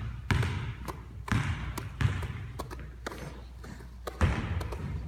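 Basketballs being handled during a ball-circles drill: irregular thuds, roughly one a second, of the balls slapping into hands and hitting the floor.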